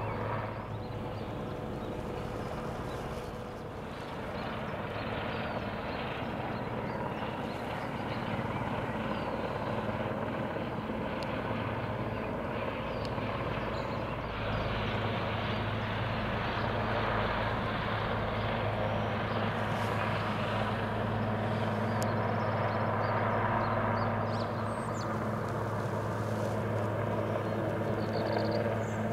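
Distant federal police firefighting helicopter running steadily: a continuous low drone of rotor and engine, growing a little louder about halfway through.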